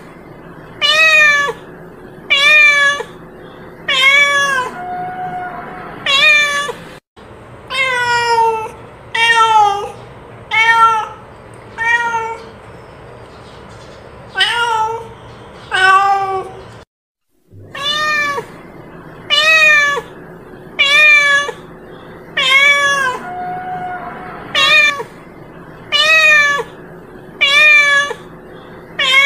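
A cat meowing over and over, about one short meow every one and a half seconds, each call rising then falling in pitch. The sound breaks off briefly twice.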